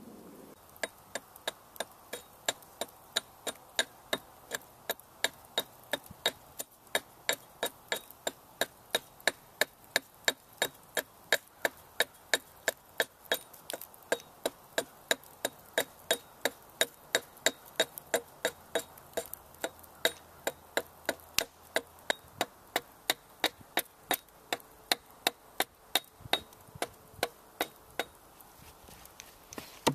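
Hatchet chopping down the edge of an upright red oak bow stave in steady, regular strikes about two a second, taking wood off to straighten the bow. The strikes stop near the end.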